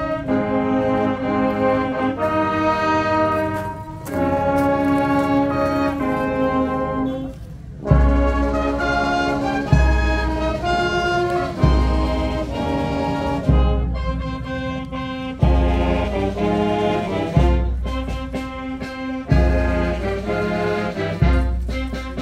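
Brass band playing a slow, solemn piece in sustained chords. From about eight seconds in, a deep low beat falls roughly every two seconds.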